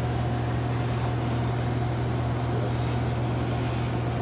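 Steady low hum of kitchen ventilation, with a short scrape of a chef's knife through eggplant on a wooden cutting board about three seconds in.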